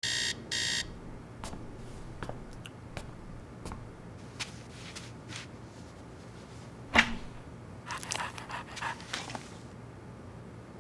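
Digital alarm clock beeping twice at the very start. Then scattered light clicks and knocks, with one sharp loud snap about seven seconds in and a quick run of clicks shortly after.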